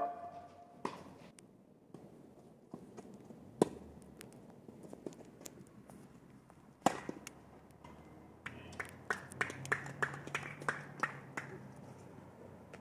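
Tennis being played: a few sharp knocks of the ball on racket strings, several seconds apart, then a quick run of lighter taps near the end.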